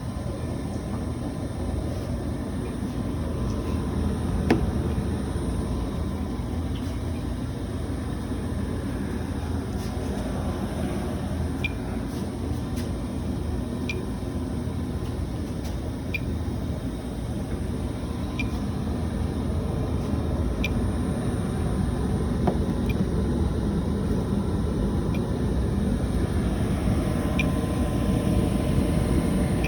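Residential gas furnace running with its burners firing: a steady rumbling noise that comes on suddenly and grows a little louder near the end. Faint short ticks repeat about every two seconds through the second half.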